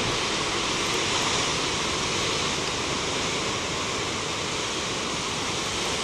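Heavy storm surf breaking and washing white over shoreline rocks: a steady, loud rush of churning water and foam with no separate crashes.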